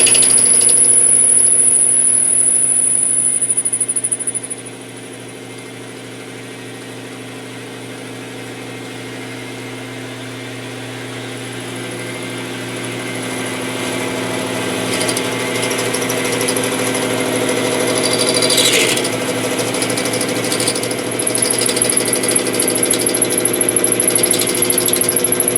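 King Industrial 10x22 metal lathe running with a steady mechanical whine from its motor and gears. A high-pitched squeal over the first few seconds stops about four seconds in. The level then drops and slowly builds back up.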